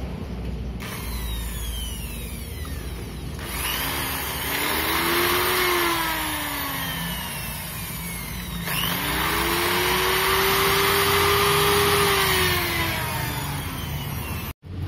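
Corded electric drill run twice, about four seconds each, drilling into a motorcycle helmet shell; the motor's pitch rises as it spins up and sinks as it slows to a stop.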